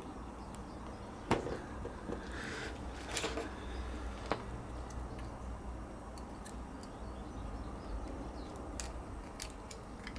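Scattered clicks and light knocks of small parts being handled while a light fitting is reassembled. The sharpest click comes about a second in, with fainter ticks later.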